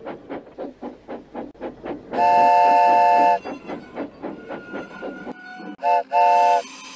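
Dubbed steam locomotive sound effect: rhythmic chuffing whose beats slow from about five to about three a second, broken by a long multi-tone steam whistle blast about two seconds in. Near the end come a short whistle toot and a longer one, then a hiss of steam.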